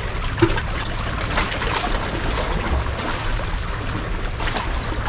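Sea waves washing and splashing on the shore: a steady rushing with a low rumble underneath.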